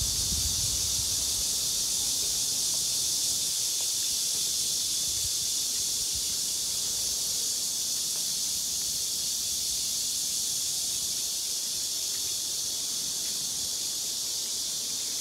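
Cicadas buzzing in a steady, high, unbroken chorus in summer woodland.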